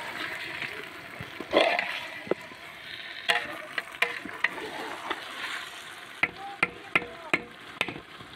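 Metal ladle stirring chicken pieces with onions, tomatoes and herbs in a large aluminium cooking pot: wet squelching of the mixture and sharp clinks of the ladle against the pot, several in quick succession in the second half, some with a brief metallic ring.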